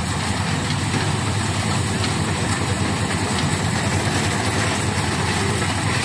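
Rice combine harvester's engine running steadily as it works the paddy, an even, unbroken drone.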